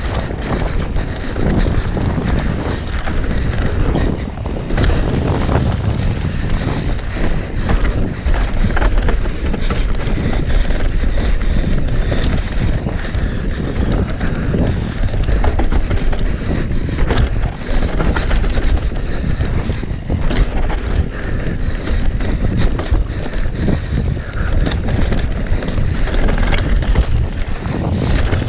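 Downhill mountain bike ridden fast over a rough, rooty dirt trail: constant wind buffeting the camera microphone and tyre noise, broken by frequent sharp knocks and rattles as the bike hits roots and bumps.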